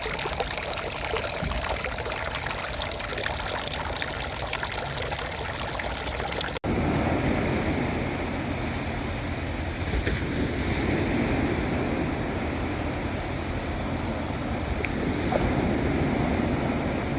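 Water running and splashing in a steady, noisy wash. At a cut about six and a half seconds in, it changes to a deeper, slightly louder water sound.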